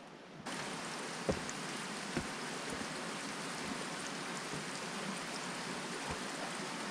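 A steady rush of running water from a mountain stream, starting abruptly about half a second in, with a few knocks of boots on rock as a hiker scrambles up boulders.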